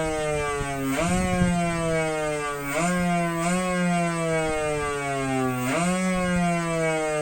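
An e-bike's electronic sound-effect speaker imitating a big motorcycle engine. The synthetic engine note jumps up in pitch three times and then sinks slowly each time, like throttle blips and revs.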